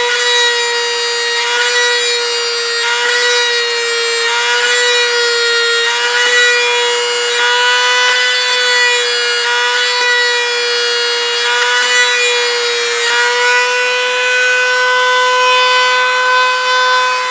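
Dremel rotary tool whining at high speed with a brass tube in its chuck, pressed against the model jet's skin to emboss rivets. Its steady high pitch dips slightly each time the tube is pressed onto the surface, with faint rubbing. The tool starts to wind down at the very end.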